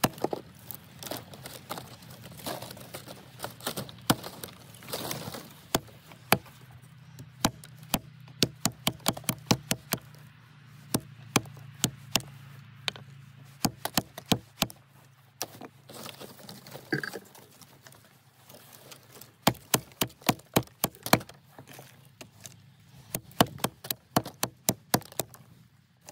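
Small Fiskars hatchet chopping at a thin branch laid on a wooden chopping block: a long series of sharp knocks, coming in quick runs of several strikes with short pauses between.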